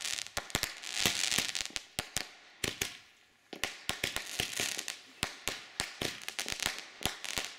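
Backyard consumer fireworks going off: a rapid string of sharp pops and crackles with hissing. There is a short lull about three seconds in, then more crackling pops.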